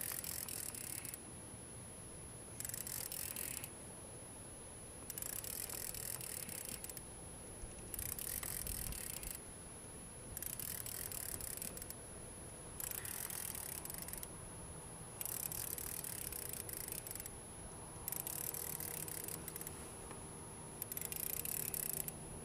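Fishing reel being cranked in spurts while a hooked fish is reeled in: about nine bursts of hissy gear noise, each a second or two long, with short pauses between.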